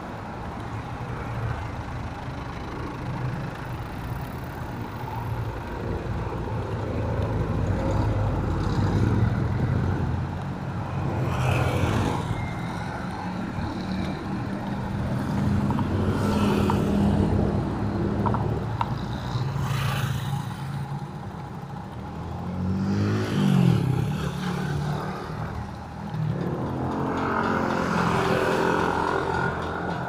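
Street traffic: engines of cars and trucks running and passing in a steady low rumble, with several vehicles swelling up and fading away. About two-thirds of the way in, one engine rises and falls in pitch as it goes by.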